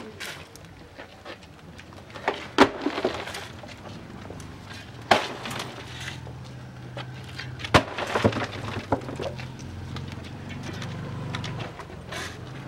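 A shovel scooping loose earth from a heap and tossing it into an open grave, three times about two and a half seconds apart: each a sharp knock or scrape of the blade, followed by a short rattle of scattering soil.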